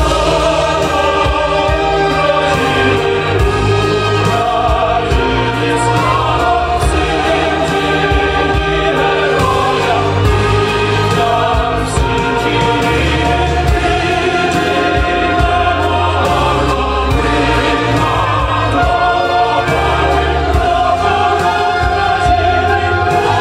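A song with a choir of voices singing over a steady bass line, played as dance music.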